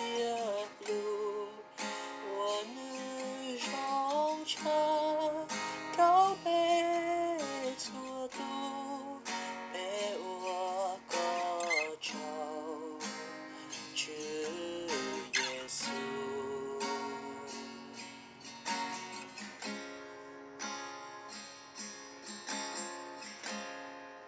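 Acoustic guitar strummed in chords, with a wavering melody line over it, dying away over the last few seconds.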